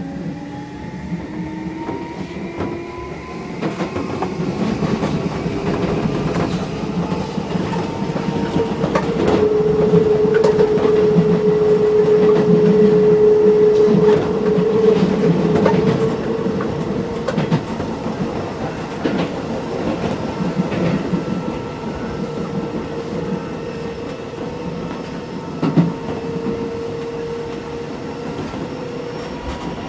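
Onboard running sound of a chopper-controlled Keisei 3400-series electric train, heard inside the passenger car: traction motor and gear whine rising in pitch as the train picks up speed, then running steady and louder from about 9 s in. Wheels click over rail joints throughout.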